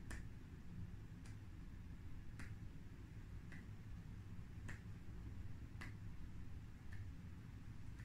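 Sharp, short ticks at a slow, even pace, about one a second, over a faint low hum.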